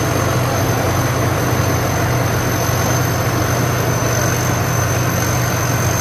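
Sit Charoen Kan Chang tracked combine harvester's diesel engine running steady and loud as the machine moves across the field, with a steady high whine over the deep engine hum.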